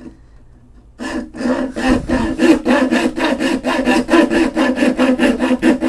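Bow saw cutting through a wooden board along a curved line in quick, steady back-and-forth strokes. The sawing starts about a second in.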